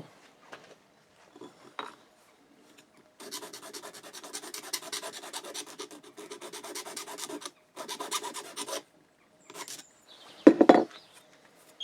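Cut end of an aluminium bolt tube being smoothed by hand with an abrasive: a steady rasping rub for about four seconds, a short pause, then a second shorter bout. A sharp knock near the end.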